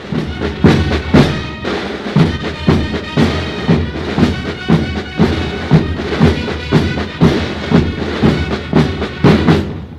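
Military band playing a march: bass drum and snare drums beating about two strokes a second, with held wind-instrument tones sounding over the drums.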